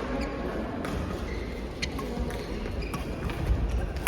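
A few sharp taps, roughly a second apart, like a ball being struck or bounced, over a steady background murmur.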